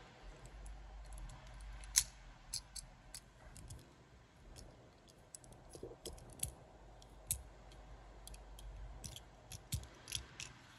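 Light clicks and taps of a diecast model truck's parts, its interior and metal base, being handled and pressed together, coming irregularly, with one sharper click about two seconds in.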